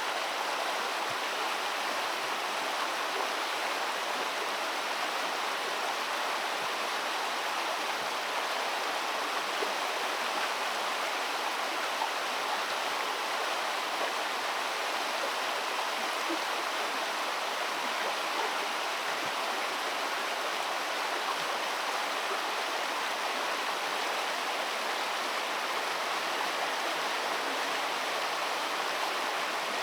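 Steady rush of flowing water, an even wash of noise without a break.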